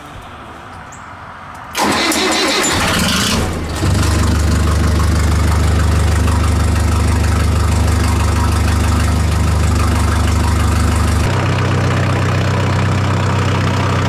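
Loader tractor's engine cranked by the starter for about two seconds, catching and settling into a steady idle; its note changes slightly near the end.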